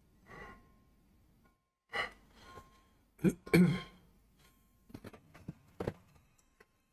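A man's sharp gasps and breaths without words, loudest at about halfway in, then a quick cluster of shorter ones near the end.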